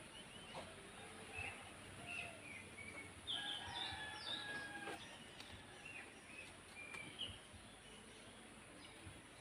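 Maya birds (Eurasian tree sparrows) chirping at their nest: short scattered chirps, with a busier, louder run of calls from about three to five seconds in, over a faint steady hiss.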